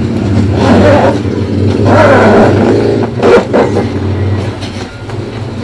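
Zipper of a hard-shell helmet case being pulled open around the shell in several uneven strokes, over a steady low hum.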